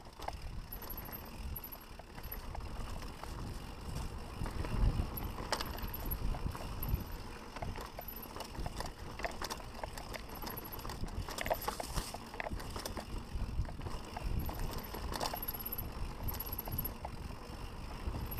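Mountain bike rolling fast downhill over a dirt and rocky trail: a steady low rumble of tyres and riding noise, with frequent sharp knocks and rattles as the bike and its suspension fork take the bumps and rocks.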